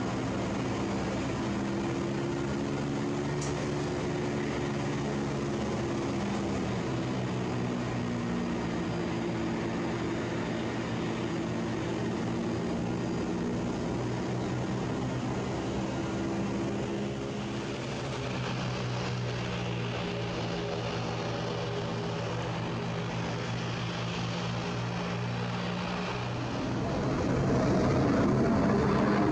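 Boeing 767 twin jet engines running at low power while it taxis, a steady droning hum. Near the end the engines spool up for the takeoff roll and the sound rises into a louder, fuller rush.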